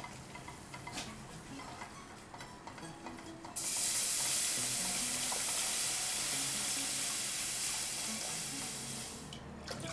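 A whisk stirring a butter-and-flour roux in a saucepan, with a few light ticks against the pan. About three and a half seconds in, water is poured into the hot roux and sets off a sudden loud, steady sizzle and hiss that eases off near the end.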